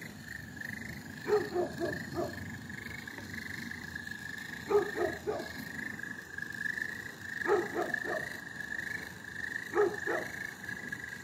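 An animal calling in groups of three or four short calls, a group about every three seconds, over a steady, slightly wavering high whine.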